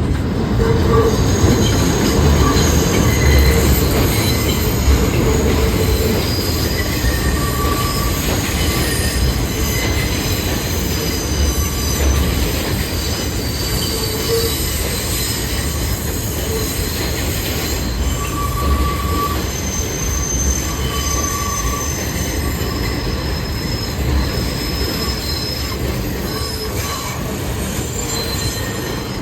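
New York City subway train on the rails, a heavy steady rumble overlaid with high wheel squeal that comes and goes in several pitches throughout.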